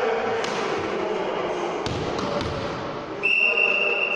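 Ball thuds and knocks on a sports hall floor over a murmur of voices, then about three seconds in a loud, steady, high referee's whistle blast that holds for about two seconds.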